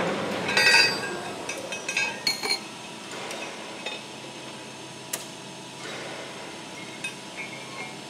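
Hardened steel slitter knives and spacer rings clinking against each other and the arbor shaft as they are handled during a blade change on a metal slitting machine: several clinks in the first two and a half seconds, one sharp click about five seconds in, and a few light ticks near the end.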